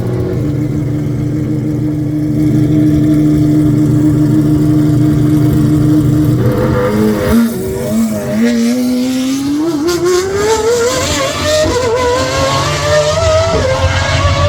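Rimac Nevera electric hypercar's motor whine. It holds a steady pitch at first, then wavers about six seconds in as tyre hiss comes in. It then climbs steadily in pitch as the car accelerates.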